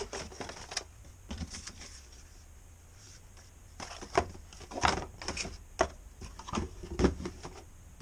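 Cardboard packaging being handled: an inner cardboard tray slid out of its box and a paper leaflet rustled. Irregular scrapes, taps and rustles that get busier about halfway through.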